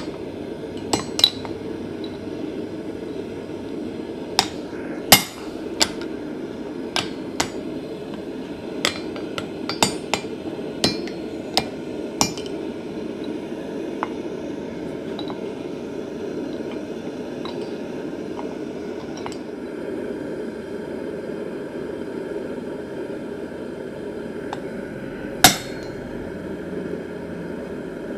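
Hammer blows on steel at the forge: about a dozen irregular strikes in the first half and one louder strike near the end, over a steady low rushing noise.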